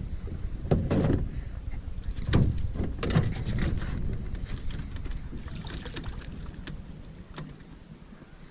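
Water splashing with a few sharp knocks in the first few seconds, then dying away.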